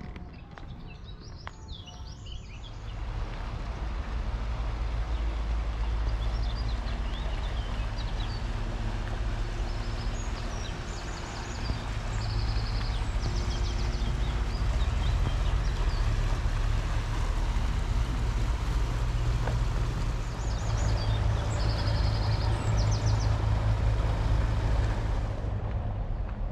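A steady low rumble that swells about three seconds in and holds, with short bird chirps above it twice.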